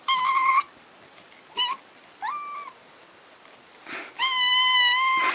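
Cat meowing: four high-pitched meows, three short ones in the first three seconds (the third rising, then holding) and a long steady one near the end.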